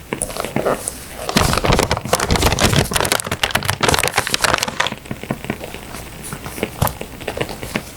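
Paper and sticker sheets rustling and crinkling as they are handled close to the microphone, densest between about one and five seconds in, with sparse sharp crackles of a wood fire around it.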